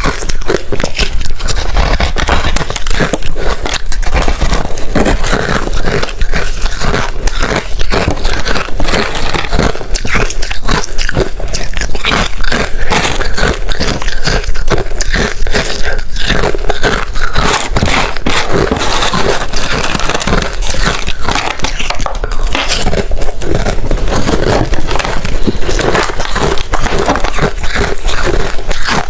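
A person biting and chewing ice close to the microphone: dense, continuous crunching and crackling with no pause.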